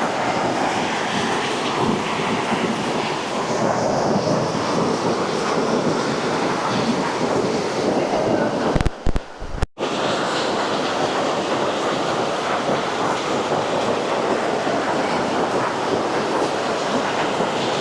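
Loud, steady rush of a monsoon-swollen stream gushing at the foot of a waterfall. It cuts out for under a second about halfway through.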